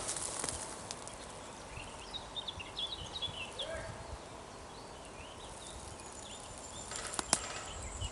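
Footsteps and rustling on rough ground, with a bird chirping in short phrases in the background and a sharp click about seven seconds in.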